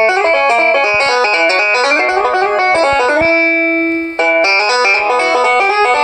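Qphone mobile phone ringtone: a fast, banjo-like plucked-string melody. A note is held a little past three seconds in, there is a short break just after four seconds, and then the quick notes resume.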